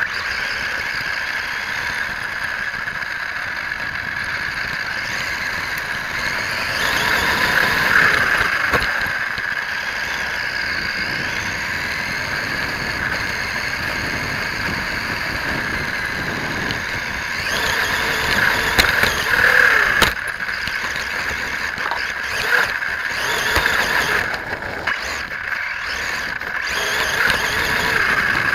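Vaterra Twin Hammers 1/10-scale radio-controlled rock racer driving over dirt and gravel, heard from a camera mounted on its body. Its electric motor and gears give a steady whine that swells louder about 8 seconds in and again around 18 to 20 seconds, with scattered knocks from the bumpy ground later on.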